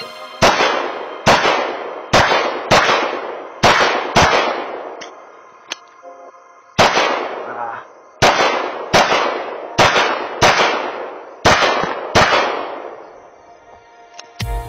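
Pistol shots fired in quick strings, about a dozen sharp reports each ringing out briefly. Six shots come in the first few seconds, then after a pause of about two seconds a second string of seven follows at a similar pace.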